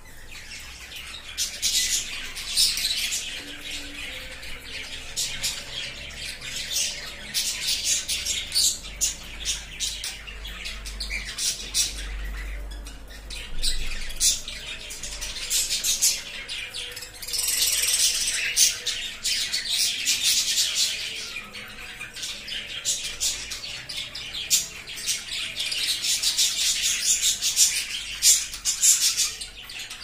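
Several budgerigars chattering: fast, dense high chirps and squawks overlapping each other, thinning briefly around the middle before picking up again.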